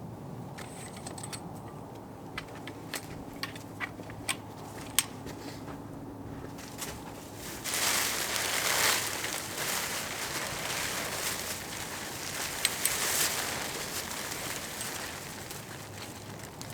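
Rustling and crunching from handling a tent in snow: scattered sharp clicks at first, then from about halfway a longer stretch of crinkling and crunching.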